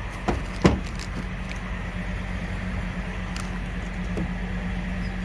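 Steady drone of a truck's refrigeration (reefer) unit running, with two sharp knocks within the first second.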